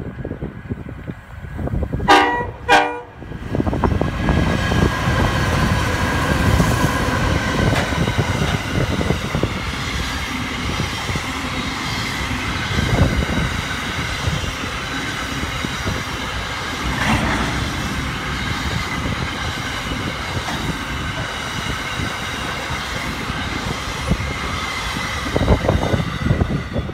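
Freight train sounding two short horn blasts about two seconds in, then a diesel locomotive and a long line of container wagons passing close by with a steady rumble and clatter of wheels on the rails.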